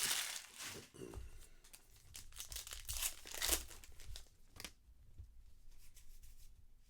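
Trading card pack wrapper being torn open and crinkled, in several sharp rustling bursts, then softer rustling toward the end.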